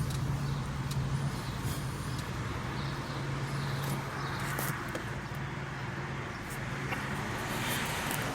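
Car engine running with road noise, heard from inside the cabin while driving slowly: a steady low hum with an even rush of tyre noise above it.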